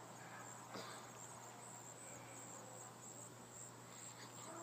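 Faint, steady high chirring of crickets, with one soft tap about a second in.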